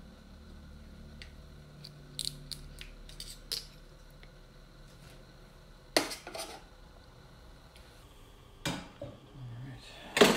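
Resin-printer build plate and parts being handled: a run of light metal clicks and ticks, then sharp metal knocks about six seconds in and again near the end, the last clank the loudest, as the aluminium build plate and the stainless steel wash tank are set down and knocked together.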